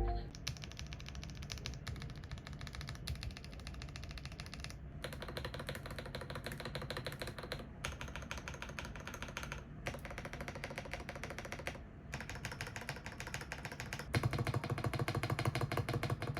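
Fast typing on a mechanical keyboard, a dense run of key clacks, in several short takes joined end to end; the last take, from about 14 s in, is louder and deeper.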